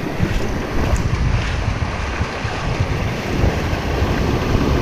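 Wind buffeting the microphone over the steady wash of shallow surf breaking around the legs.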